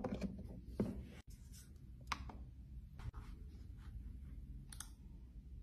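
Hands handling a cable and an iMac: scratchy rubbing in the first second, then a few sharp clicks, over a low steady room hum.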